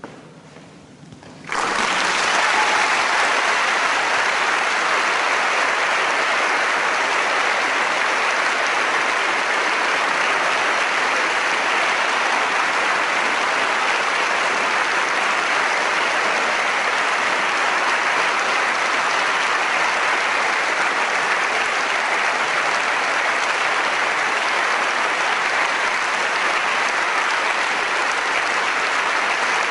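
A large audience applauding steadily. The clapping breaks out suddenly about a second and a half in, after a brief hush.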